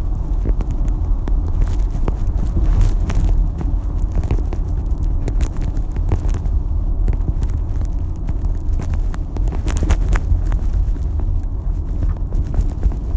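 Steady road and engine rumble inside a moving taxi's cabin, with scattered small clicks and rattles.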